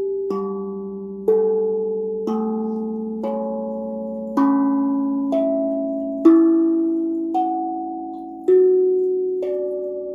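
BeatRise 13-inch, 15-note carbon-steel tongue drum, its tongues struck one at a time with a mallet's oval tip, with the bottom plug taken out. There are about ten notes, roughly one a second, each ringing on under the next. The pitches alternate low and high while climbing the scale.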